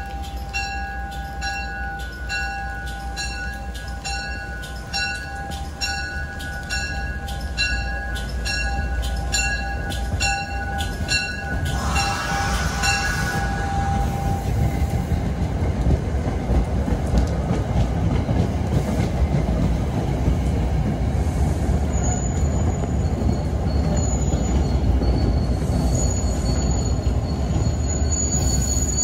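MBTA commuter rail train approaching with a bell ringing about twice a second, then its coaches rolling past on the rails, wheels clattering and getting louder. Near the end a high, steady wheel squeal sets in.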